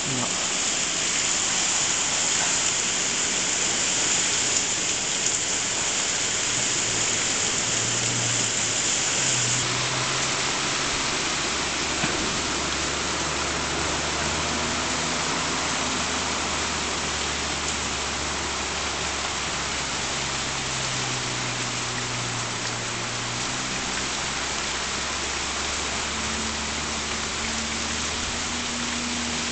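Torrential rain pouring down in a steady, dense hiss. An extra high-pitched hiss drops away about ten seconds in, and a faint low hum comes in after it.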